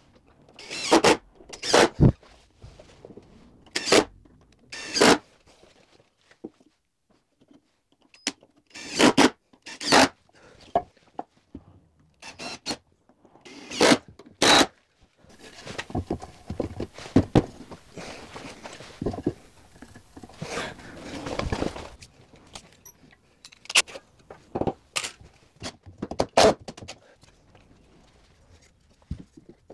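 Carpentry on timber studwork: a run of short, sharp knocks and scrapes of wood and tools, about a second apart, with a longer rasping stretch around the middle.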